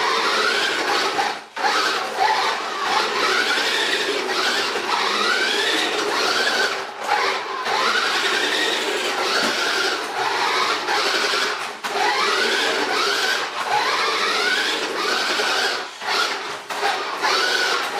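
Tonka XT Ricochet RC stunt car's electric drive motor and gears whining in repeated rising sweeps as it speeds up, over a steady rasping noise. There are brief breaks about four times, where it stops or changes direction.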